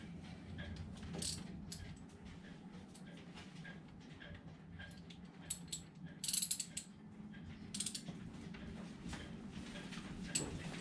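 Hand tools working on a Yanmar 3GM30's raw-water pump: a ratchet wrench clicking in short runs, with small metallic clicks and clinks. There is a louder scraping rasp about six seconds in and another near eight seconds.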